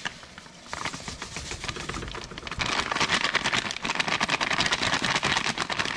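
Granular crawfish boil seasoning pouring from a plastic bag into a pot of liquid: a dense, rapid patter that grows louder about two and a half seconds in.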